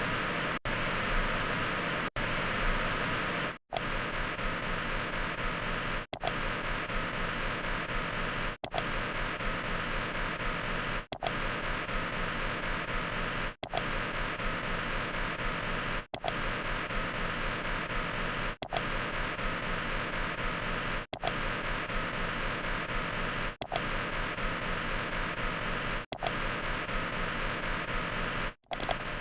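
A steady hiss-like noise, a looped sound-effect clip restarted about every two and a half seconds, with a brief gap and click at each restart.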